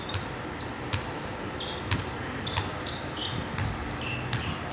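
A basketball bouncing on a hard outdoor court, several sharp bounces at irregular intervals of about a second, with short high squeaks of sneakers on the court surface between them.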